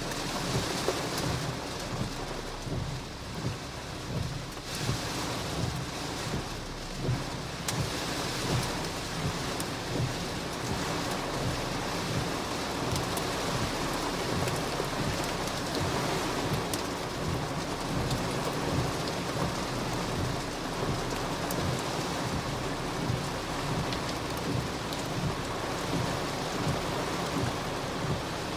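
Torrential rain drumming on a car's roof and windshield, heard from inside the car, with the windshield wipers sweeping. It is a dense, steady downpour with a low rumble that grows a little heavier about five seconds in.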